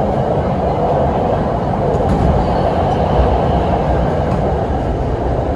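Hanoi Metro Line 2A train running: a steady rumble and rail noise, heaviest in the low range, without a break.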